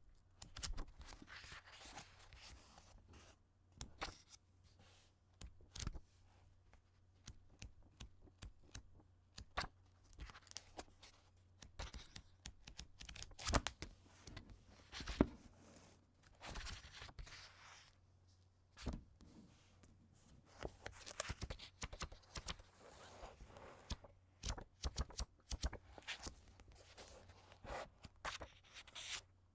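A book being handled and opened over and over: paper pages and cover rustling and flapping in short, irregular strokes, with sharper snaps here and there and two louder ones about halfway through.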